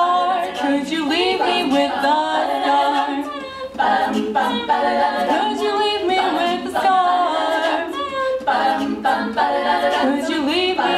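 All-female a cappella group singing in close harmony, several voices layered with no instruments.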